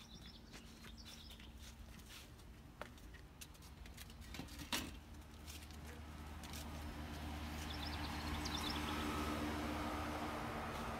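Footsteps and scattered small clicks, with a few bird chirps near the start and again later. From about six seconds in, a steady mechanical hum with several held tones grows louder and stays.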